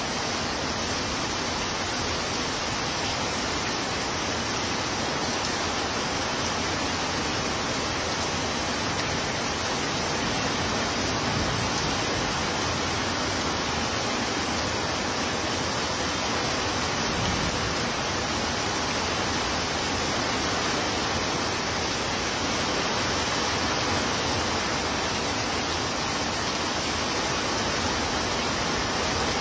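Heavy rain falling steadily, a dense even hiss of downpour with no breaks or thunderclaps.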